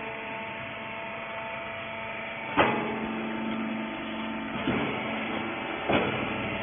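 Rag compression baler running steadily with a hum that holds several steady tones, broken by three sharp clanks, about a third of the way in, two-thirds in and near the end.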